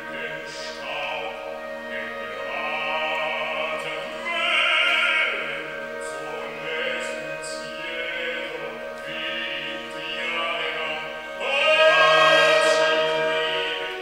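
Operatic singing over sustained orchestral tones from a contemporary opera. The voices swell loudest about five seconds in and again near the end.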